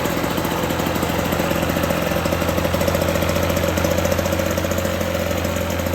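1955 Lawn Boy 8F20 mower's two-stroke engine running steadily on its first run after restoration.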